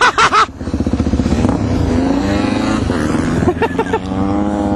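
Suzuki DR-Z400E's single-cylinder four-stroke engine running steadily under way, heard from the rider's helmet. A loud shout fades out in the first half second.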